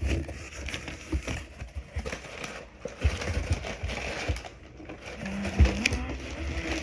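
Packaging being handled and rustled while a parcel is unwrapped, with scattered clicks and knocks.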